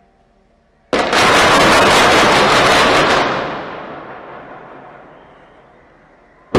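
Controlled demolition blast of an apartment tower: a sudden, very loud explosion about a second in that holds for about two seconds, then fades away over the next three.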